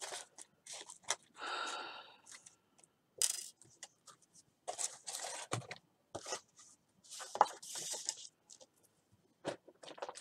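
Paper and card being handled on a craft table: a run of short, irregular rustles, scrapes and taps, with one longer scrape about a second and a half in.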